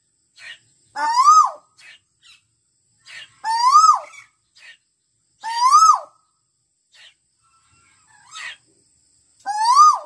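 Male Asian koel calling: four loud notes about two seconds apart, each rising and then falling away, with fainter notes in between.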